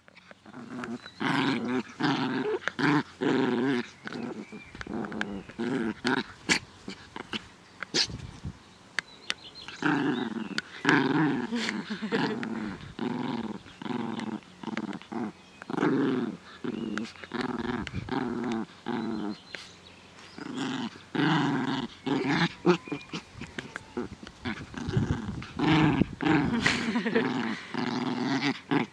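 Chihuahua growling in play while tugging and wrestling with a blanket: a long run of rough, pitched growls broken by short pauses, with sharp clicks now and then.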